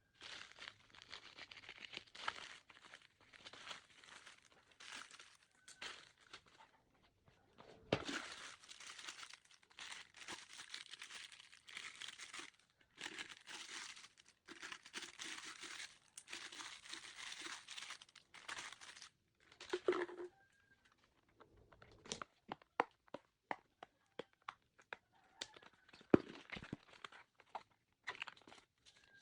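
Parcel packaging being torn open and crinkled by hand, long bouts of rustling and tearing. After a short pause about 20 seconds in, it gives way to a quick run of sharp clicks and taps.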